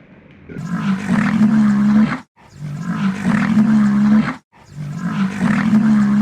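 Big cat roaring: three similar long, rough roars with a steady low pitch, each cut off abruptly by a brief dead silence.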